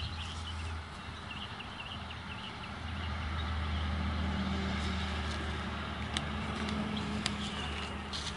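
An engine running steadily with a low hum, louder from about three seconds in, with short bird chirps and a few sharp clicks over it.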